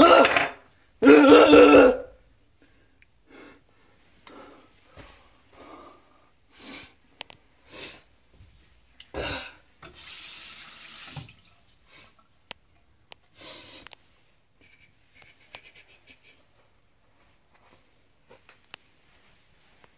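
A short, loud vocal noise about a second in, then scattered knocks and clinks of things handled at a bathroom washbasin, with the tap running for about a second just past the middle.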